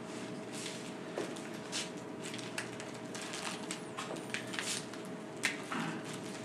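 Dry-erase marker drawing on a whiteboard: a string of short, irregular scratchy strokes, over a steady hum in the room.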